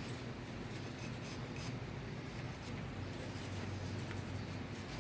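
Wire brush scrubbing rust and corrosion off the brass fittings of a Keihin throttle body, a steady run of short scratching strokes over a low steady hum.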